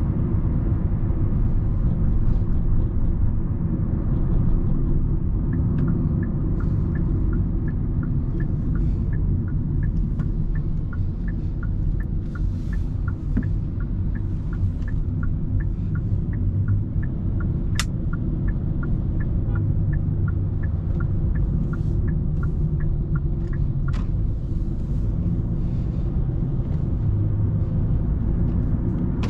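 Steady low road and drivetrain rumble heard inside the cabin of a 2020 Hyundai Sonata while driving. From about six seconds in until about two-thirds of the way through, the turn-signal indicator ticks about twice a second, and two sharp clicks stand out.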